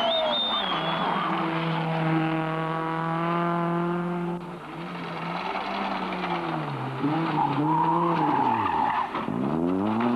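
Rally car engine held at high revs, then revs dropping and rising repeatedly, falling right away about nine seconds in before climbing hard again. A brief tyre squeal at the start.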